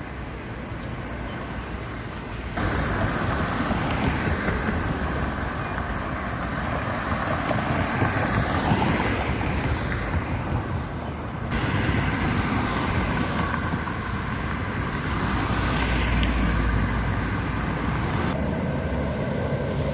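City street traffic: cars and other vehicles passing in a steady wash of road noise, swelling as heavier vehicles go by. The sound jumps abruptly to a new level about two and a half, eleven and a half and eighteen seconds in.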